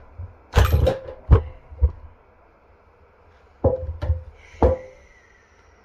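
Hammer blows on a Mercury distributor, knocking its shaft out of the housing: three sharp knocks in the first two seconds, then three more after a pause of about a second and a half. The last blow leaves a short metallic ring.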